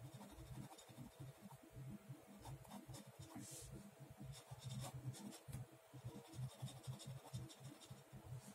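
Ballpoint pen scratching on paper in many short, irregular sketching strokes, faint.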